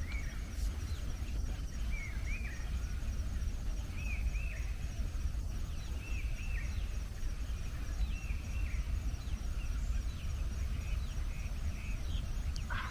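Wild bird repeating a short two-note call about every two seconds, over insects chirping faintly and steadily.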